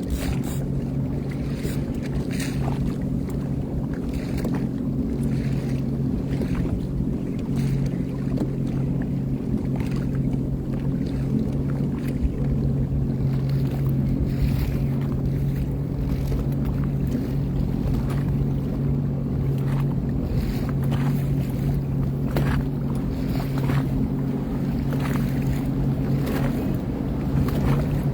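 Sea-Doo FishPro personal watercraft engine running at a steady speed, with wind buffeting the microphone and short gusts or splashes over it.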